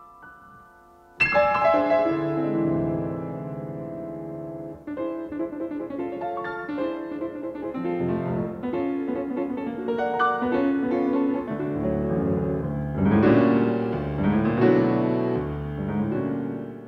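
Piano playing a lively tune, coming in with a loud chord about a second in after a few soft rising notes.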